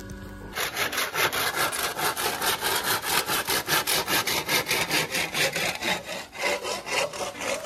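Hand saw cutting through a bamboo pole in quick, even back-and-forth strokes, about three a second, starting about half a second in.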